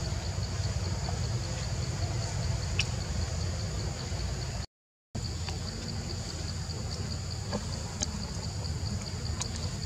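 Insects buzzing steadily in two high tones over a low background rumble, with a few faint clicks; the sound drops out completely for a moment about halfway through.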